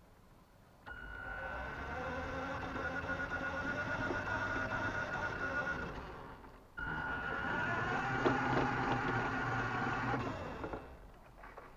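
Electric motor and gearbox of a radio-controlled Mini Cooper S model car whining as it drives, in two runs of about five and four seconds, each starting abruptly.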